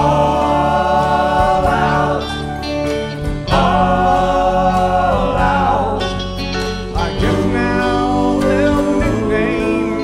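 Live rock band playing: drums, bass guitar, acoustic and electric guitars and keyboard, with long held melody notes over the chords.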